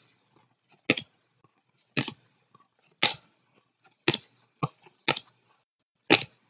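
A pack of 2016 Absolute football trading cards being flipped through by hand. Each card is slid from the front of the stack to the back with a short, sharp snap, about once a second, seven times.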